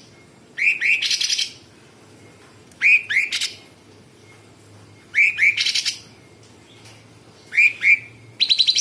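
Caged blue-winged leafbird (cucak cungkok) singing a short phrase over and over, about every two seconds. Each phrase is two quick slurred notes followed by a fast, harsh rattle. Near the end the rattle runs on longer.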